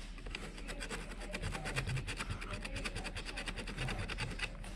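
Rapid, even clicking, about ten clicks a second, from hand work with a small tool on an ATV starter solenoid's battery-cable terminal.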